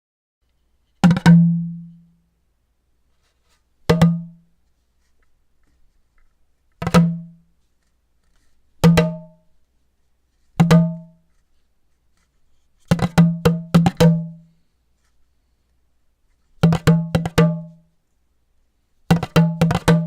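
A series of eight short percussion jingles, each a few sharp strikes on a low-pitched drum that ring and fade within about a second, with silence between them. The first five are single quick flams; the last three are faster runs of several strokes.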